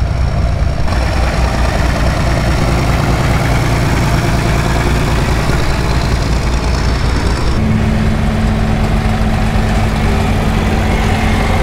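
Engines of John Deere farm tractors running steadily at low speed as they drive past in a line. About two-thirds of the way through, a second engine's steady hum comes in as the next tractor passes.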